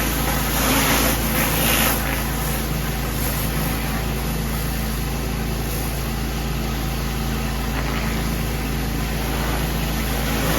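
Pressure washer running steadily: a continuous engine drone under the hiss of the spray, the hiss briefly louder about a second in.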